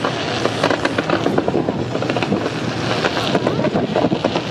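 Fireworks going off in a dense, rapid barrage of bangs and crackling, many reports a second with no letup.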